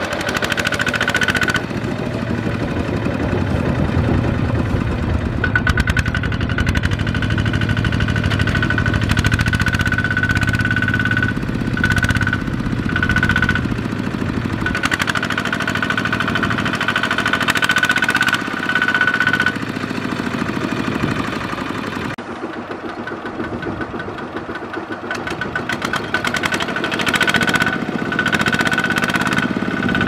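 Kubota ZT155 single-cylinder diesel engine of a two-wheel walking tractor running steadily while it hauls a trailer loaded with rice sacks. A high steady whine comes and goes over the engine's rumble.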